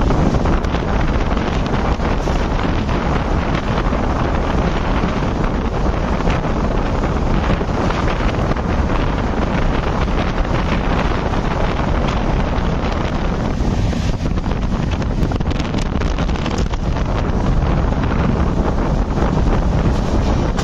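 Strong wind buffeting the microphone over the steady running noise of an express train travelling at speed, heard from an open coach doorway.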